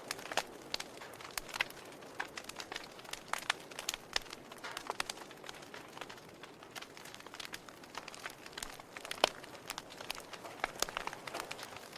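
Wood fire in a fireplace crackling: irregular sharp pops and snaps over a soft hiss of burning, with one louder pop about nine seconds in.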